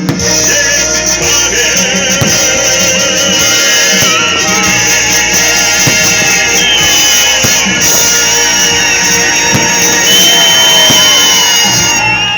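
Loud music with a singing voice and a steady beat.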